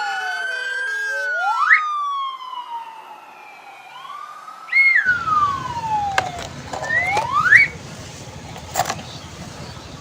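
Electronic toy siren sound effects: several sliding tones that fall from high to low, with a few quick rising sweeps between them. A steady low hum joins about halfway through.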